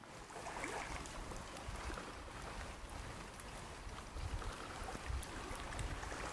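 Lakeshore ambience: a steady wash of water and wind, with gusts of low rumble from wind on the microphone.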